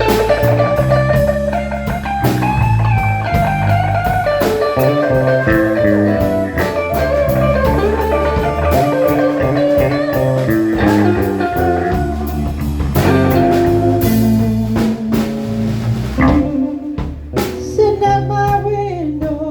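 Blues-style music with guitar, drums and singing.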